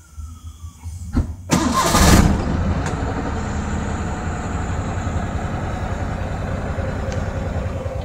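Small pickup engine started by a push-start button: a click or two, then a short burst of cranking as it catches at about two seconds in, after which it settles into a steady idle.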